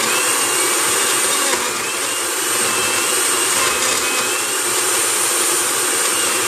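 Hamilton Beach countertop blender running steadily at speed, crushing ice cubes and blending them with water, avocado and banana into a shake, with a high motor whine that wavers slightly.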